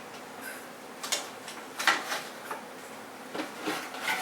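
Scattered light clicks and knocks of tools and parts being handled during setup, about seven in all. The loudest comes about two seconds in.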